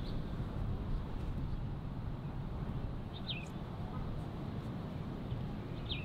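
A bird giving short, sharp falling chirps, once about halfway through and again near the end, over a steady low rumble.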